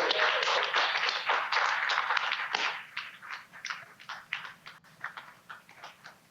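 A dense run of sharp clicks that thins out after about two and a half seconds into scattered single clicks, fading away.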